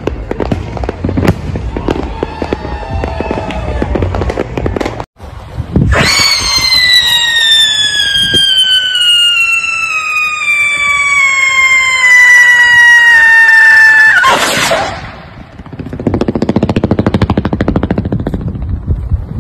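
Fireworks: crackling and popping for the first few seconds, then, after a brief cut, a loud whistle that falls steadily in pitch for about eight seconds and ends in a sharp burst, followed by more dense crackle.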